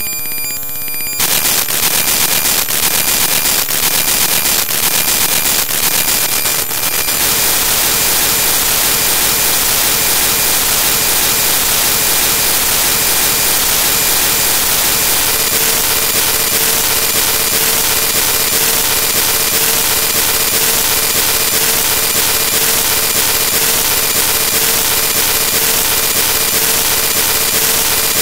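Loud digital static from corrupted audio. A buzzing chord of steady tones breaks off about a second in into a harsh, even hiss, with clicks over the next several seconds and a faint steady tone joining midway.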